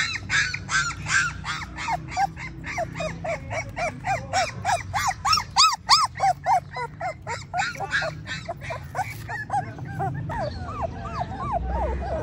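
A litter of German shorthaired pointer puppies whining and yelping: a fast string of short, high cries that rise and fall in pitch, about four a second, with several puppies overlapping.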